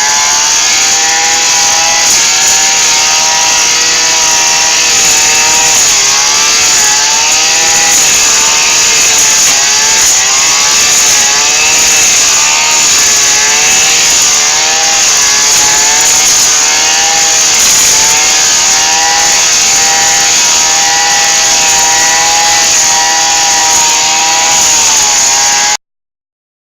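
Small petrol engine of a lawn mower running at high speed, its pitch wavering up and down every second or two. It stops abruptly near the end.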